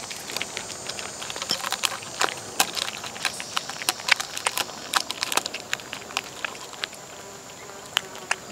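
A cat eating tuna from a dish: quick, irregular wet chewing and lapping clicks, several a second.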